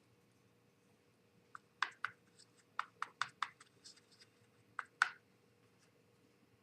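About a dozen light clicks and taps spread over some three seconds, the loudest near the end: a paint brush being dabbed onto a small plastic model part to apply thinned paint.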